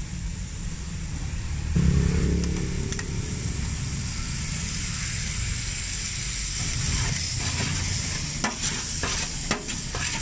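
Chopped raw pork sizzling on a hot steel griddle, the sizzle brightening as liquid is poured over it, with a metal spatula scraping and knocking on the griddle in quick strokes through the second half. A low rumble runs underneath and is loudest about two seconds in.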